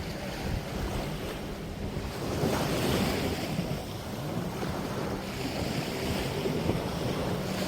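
Waves washing onto the beach with wind buffeting the microphone, the surf swelling about two and a half seconds in. A faint steady hum runs underneath.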